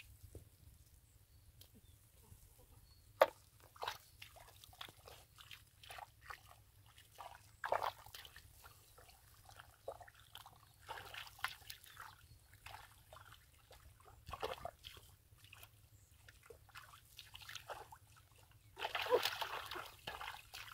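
Bare feet and hands squelching and sloshing in wet mud and shallow muddy water, in irregular short splashes. A sharp click about three seconds in is the loudest single sound, and a longer stretch of splashing comes near the end.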